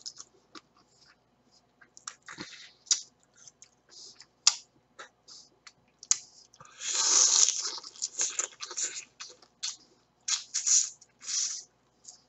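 Swimming crab shell and legs cracking and crunching as they are bitten and pulled apart by hand, in short irregular crackles and clicks, the longest and loudest crunch about seven seconds in.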